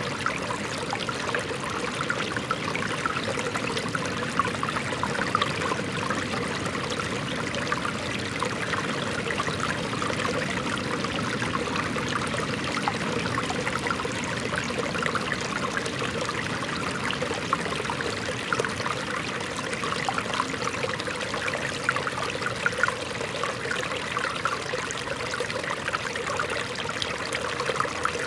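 Shallow stream running over rocks: a steady rush of water, full of small trickles and splashes.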